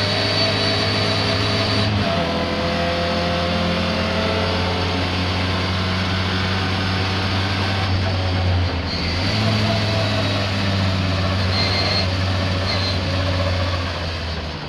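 Racing car engine running hard at speed, its pitch shifting about two seconds in and again around nine seconds, as with gear changes or a change in revs. The car is one its owner describes as misfiring.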